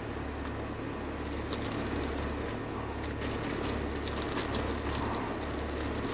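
Steady low mechanical hum, with faint light rustling and crinkling as a folded disposable face mask is handled.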